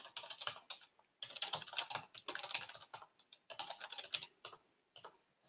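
Typing on a computer keyboard: quick runs of keystrokes with short pauses between them, stopping about five seconds in.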